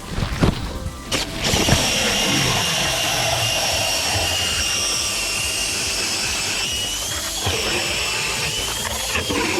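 Power ice auger (drill-driven auger) boring a hole through lake ice for ice fishing: a couple of knocks, then a steady motor whine starting about a second and a half in, its pitch dipping and wavering near the end as the bit works through the ice.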